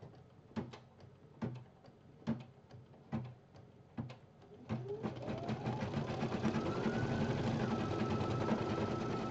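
Brother BP1530L embroidery machine starting a design: a few slow, separate needle clicks, then about five seconds in it speeds up with a rising whine into steady, rapid stitching.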